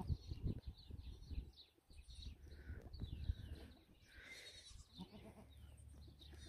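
Savanna goats bleating faintly and intermittently, over a low rumble of wind on the microphone.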